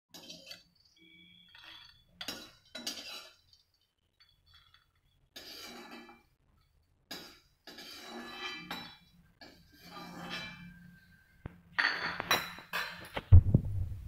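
Perforated metal spoon clinking and scraping in an aluminium kadhai as dry-roasted makhana (fox nuts) rattle in the pan and are scooped out onto a plate. The sound comes in short bursts of clatter with gaps between them, and the loudest clatter is near the end.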